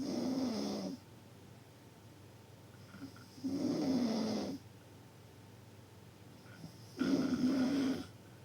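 Loud snoring: three snores about three and a half seconds apart, each lasting about a second, with a low rumble that sags slightly in pitch.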